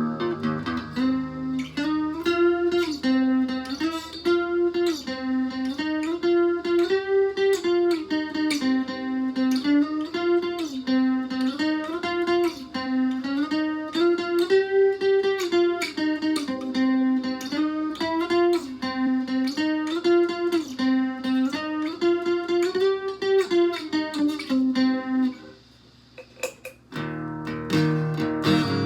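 Acoustic guitar with a Bartolini 3AV magnetic soundhole pickup, played through a BOSS DS-1 distortion pedal into a small amp, picking a repeating single-note figure. The playing stops about 25 seconds in, and after a short gap fuller chords start near the end.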